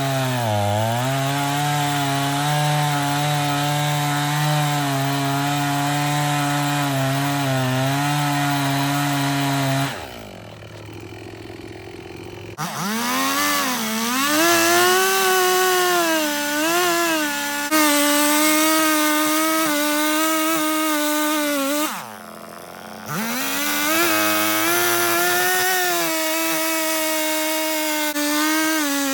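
Chainsaw at high revs cutting through a log, its engine note sagging and wavering as the bar bites into the wood. Twice it drops back briefly to a quieter idle, about ten seconds in and again a little past twenty seconds, before revving up and cutting again.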